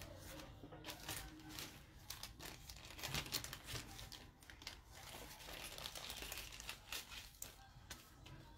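Clear plastic jewelry packaging crinkling and crackling as it is handled and opened, in faint irregular crackles.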